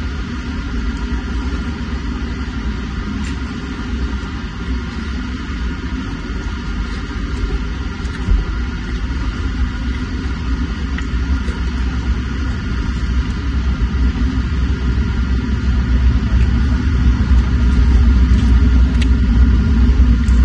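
Steady low wind and road noise while riding along a road, growing louder over the last few seconds.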